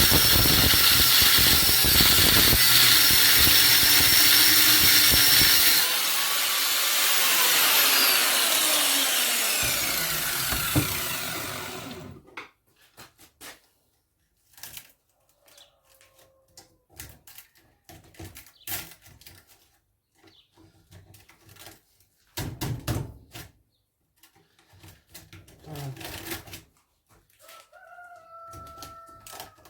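A power tool running and cutting into the washing-machine motor to free its copper winding, loud and steady for about twelve seconds before it winds down. It is followed by scattered clicks and knocks of the motor parts being handled.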